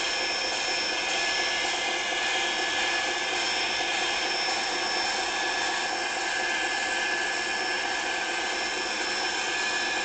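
Small electric motor of a battery-powered toy train running steadily: an even, high-pitched whir with a few steady tones.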